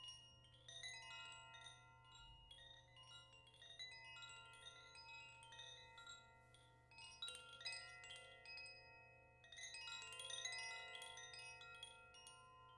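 Koshi chime being rung: a quiet, continuous jangle of many small metal strikes, each ringing on at a few fixed pitches that blend into one another.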